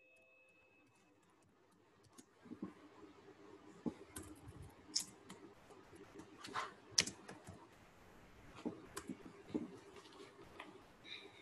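Typing on a computer keyboard: irregular key taps and clicks begin about two seconds in, over a faint low hum.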